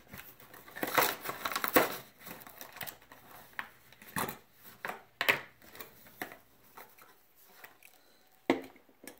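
Plastic-and-card packaging of a diecast toy car being torn and pried open by hand: irregular crackles, crinkles and tearing rustles, with a sharp crack near the end.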